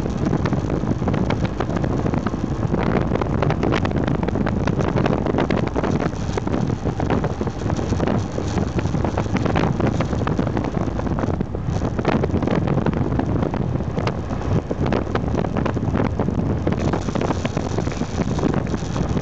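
Aprilia Pegaso 650 Strada's single-cylinder engine running steadily while riding, mixed with wind rushing over the microphone.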